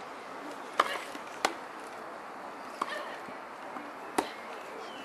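Tennis ball struck by rackets in a serve-and-rally exchange: four sharp hits about a second and a half apart, over a steady outdoor background hum.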